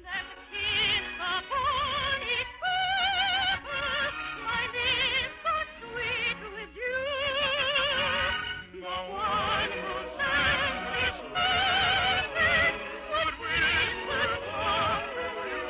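A soprano singing an operetta song in full operatic voice with a wide vibrato, over orchestral accompaniment, in phrases a few seconds long. The sound is a 1950 radio transcription with little top end.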